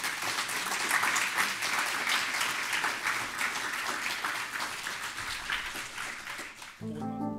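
Audience applauding, many hands clapping in a dense patter that thins out near the end. Music with held notes starts just before the end.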